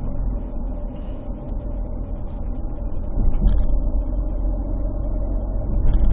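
Steady low rumble of a vehicle in motion, with a few faint light ticks above it.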